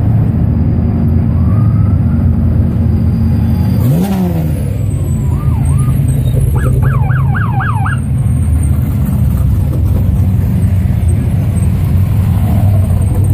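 Engines of off-road race vehicles running loudly in slow traffic, one revving up briefly about four seconds in. Around the middle, a police siren yelps briefly with a fast up-and-down wail.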